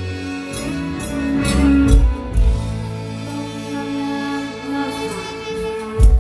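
Live amplified mor lam music: a girl singing through a microphone over a band, with a few heavy bass drum beats.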